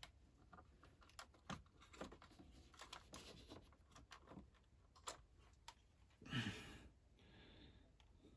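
Faint small clicks and rustles of hands handling a 1/18 scale diecast model car, with one louder short handling sound about six and a half seconds in.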